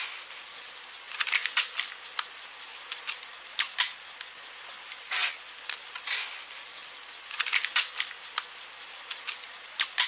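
BB gun being loaded: irregular bursts of sharp metallic clicks and short rattles, in clusters about a second and a half to two seconds apart, over the steady hiss of a microcassette tape recording.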